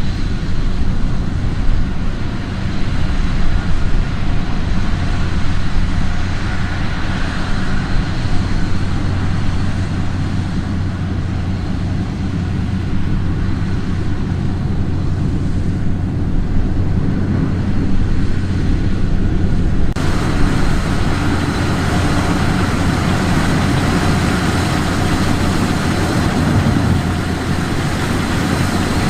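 Combine harvester running steadily while harvesting wheat: a loud, even machine noise over a low engine drone. About twenty seconds in the sound changes abruptly and turns brighter.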